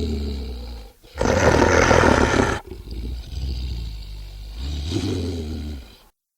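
Movie-style dinosaur roar sound effects: a low rumbling growl dies away about a second in, then a loud roar lasting about a second and a half, then a lower, quieter rumbling growl that cuts off near the end.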